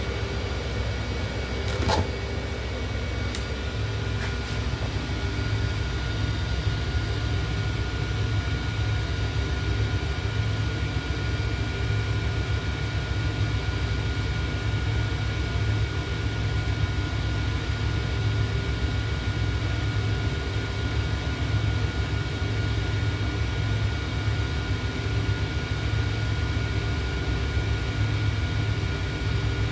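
Egg incubator running with a steady low mechanical hum and a faint steady whine, with a few light clicks about two to four seconds in.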